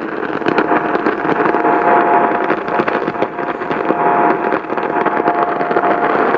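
Steady, loud radio static from a weakly received broadcast, with faint steady tones showing through the hiss.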